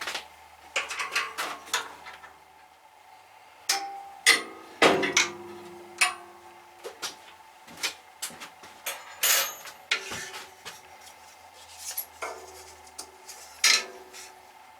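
Irregular metallic clinks and knocks, some ringing briefly, from working on the adjusting screw underneath a band saw's table to set the table square to the blade.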